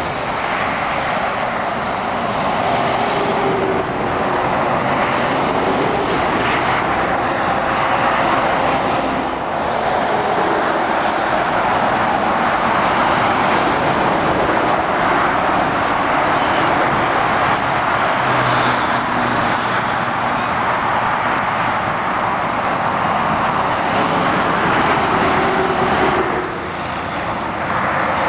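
Steady motorway traffic noise of lorries and cars driving past below: continuous tyre noise on the road surface with the lower running sound of truck engines underneath. The level dips briefly near the end.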